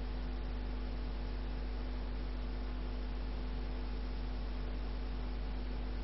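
Steady electrical hum and hiss of the recording, with no snoring or breathing sounds: a pause in breathing in a sleeper with severe obstructive sleep apnea.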